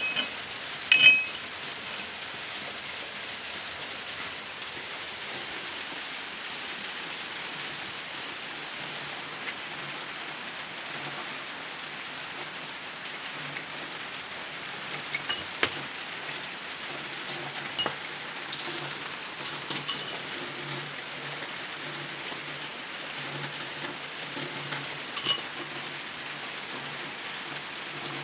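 Steady rain falling on a surface, with a few sharp clinks, one near the start and a few more around the middle.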